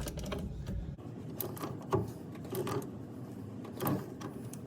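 Several short clicks and knocks at irregular intervals, about a second apart, over low background noise: the handling noise of small work by hand.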